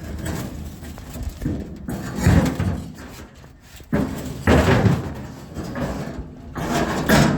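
Heavy thuds and bangs, three main ones about two seconds apart, over a low steady hum.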